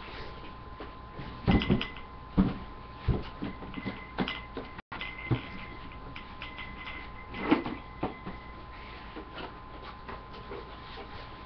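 Irregular light knocks and thumps, a cluster of them about one and a half to two and a half seconds in and a sharper one about seven and a half seconds in, over a faint steady electrical hum.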